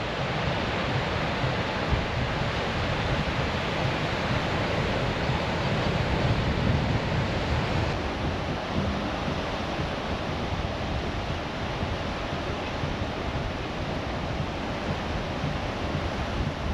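Ocean surf washing onto a sandy beach, a steady hiss, with wind buffeting the microphone in a fluctuating low rumble.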